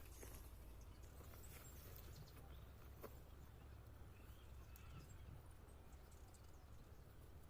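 Near silence: a faint low rumble with a few soft clicks and a couple of faint high chirps.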